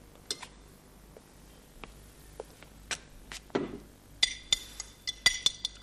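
Dishes and glassware being handled on a table: scattered light clinks, then a quick run of bright ringing clinks about four seconds in.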